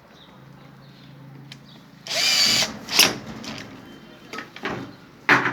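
Electric drill-driver runs in one short burst of about half a second, followed by several sharp metallic clicks and knocks.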